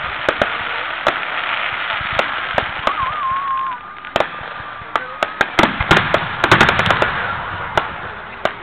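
Aerial fireworks display: a rapid, irregular series of sharp bangs and crackles from shells bursting overhead, thickest about five to seven seconds in. A short wavering whistle sounds about three seconds in.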